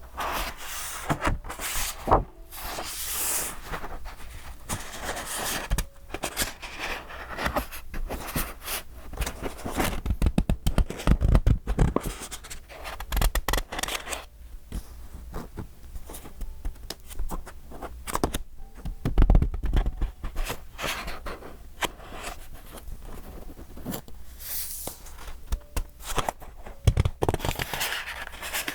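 Pages of a thick, decorated A5 paper journal being turned and handled: dense paper rustling and crinkling with small clicks and taps, and a few low bumps as the book is moved.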